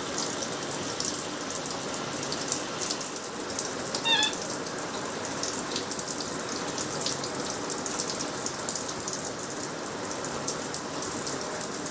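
Shower spray running steadily and splashing, with drops pattering. A brief high squeak sounds about four seconds in.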